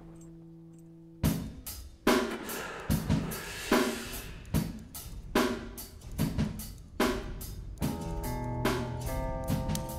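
Soundtrack music: after a quiet fading tone, a drum kit beat comes in with a loud hit about a second in, with snare, cymbal and hi-hat strikes in an even rhythm. Held pitched notes join the drums near the end.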